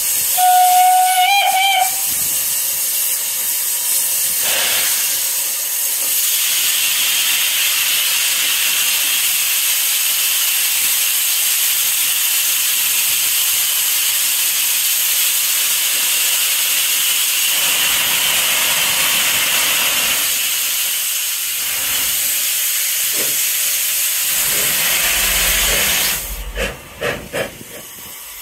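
A steam locomotive gives a short whistle blast, then steam hisses loudly and steadily from the engine for over twenty seconds. The hiss cuts off suddenly near the end, leaving a few short puffs.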